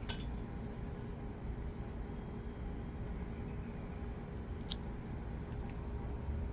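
Pea pods snapped off the vine by hand: two sharp snaps, one right at the start and another about four and a half seconds in, over a steady low rumble.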